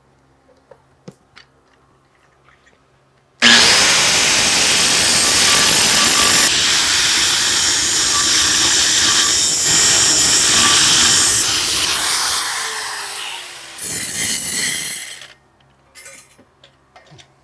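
Handheld angle grinder grinding a tack weld on steel pipe, feathering it down. It starts suddenly a few seconds in and runs steadily for about eight seconds, then its pitch falls as it winds down. It grinds again briefly and stops.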